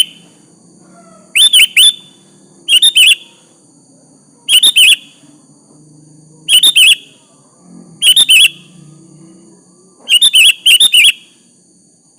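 Sooty-headed bulbul (kutilang) calling: short, loud phrases of two to four quick, bubbly notes, repeated every one and a half to two seconds, about six times.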